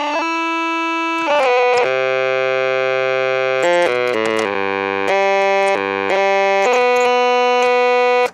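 Vintage 'Superior' toy electronic organ, made in Hong Kong, played in held notes and chords that change every half second to second and a half, with low bass notes sounding in the middle stretch. The playing stops abruptly just before the end.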